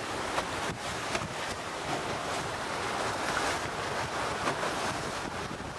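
Wind buffeting the microphone over the rush and slap of choppy water past the hull of a Telstar 28 trimaran under sail. The noise is steady, with a few short, sharper spikes.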